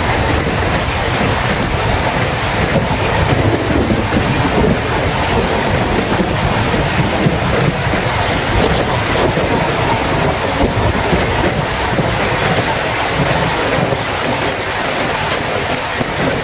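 Steady rain falling, with a low, continuous rumble of thunder underneath.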